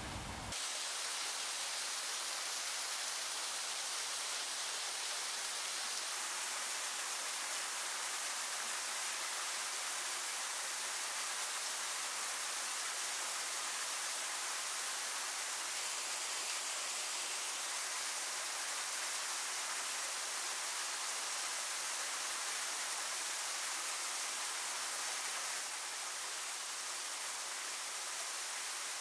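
Steady, even hiss with no distinct events, shifting slightly in level about half a second in, at about six seconds, and near the end.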